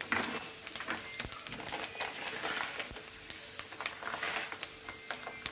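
Fenugreek and cumin seeds sizzling in hot oil in a pan: a steady hiss with scattered small crackles as the tempering fries.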